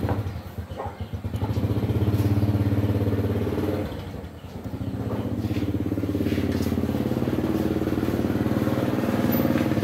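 A small motorcycle engine running steadily, easing off briefly about four seconds in and then picking up again.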